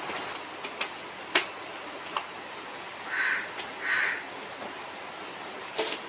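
A crow cawing twice in quick succession, a little past the middle. Sharp clicks and one louder knock of kitchen utensils being handled come before and after the calls.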